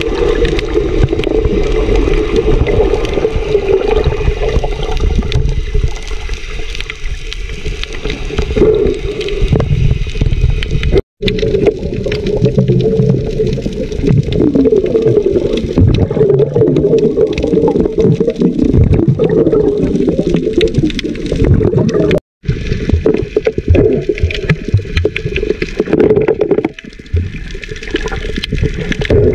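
Muffled, churning water noise with gurgling, as picked up by a camera held underwater. It drops out abruptly for a moment twice, about 11 and 22 seconds in.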